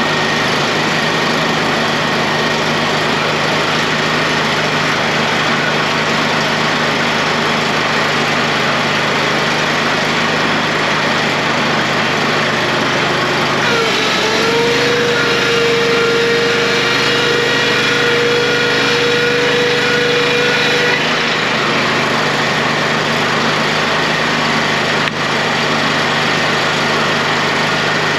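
A powered board saw machine running with a steady drone. From about 14 to 21 seconds in, a high ringing tone sounds and dips in pitch as it starts, the blade loading up while a board feeds through, then it drops back to the plain running drone.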